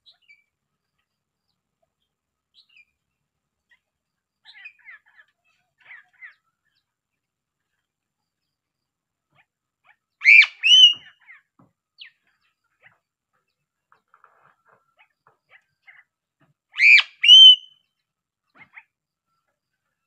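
Piping crow (Sulawesi crow) giving two loud double calls, each a pair of short, hooked notes, the first about halfway through and the second some six seconds later. Faint, scattered chirps come earlier.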